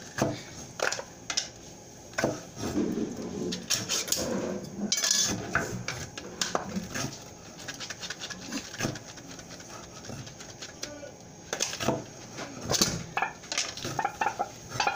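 Kitchen prep clatter: irregular knocks and clicks of a knife, utensils and a small can on a wooden cutting board.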